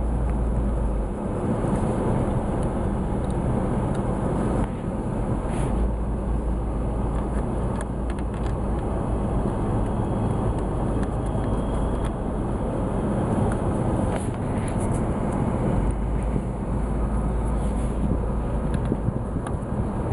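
Steady low rumble of a vehicle running, with a few faint clicks of parts being handled.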